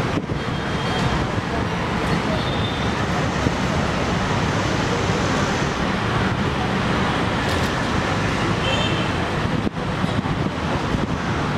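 Steady road-traffic noise: a continuous rumble of passing vehicles on a busy street.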